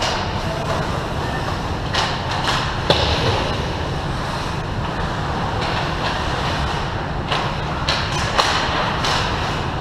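Ice hockey play on a rink: skate blades scraping the ice in short hissing strokes and several sharp clacks of sticks and puck, the sharpest about three seconds in, over a steady low rumble.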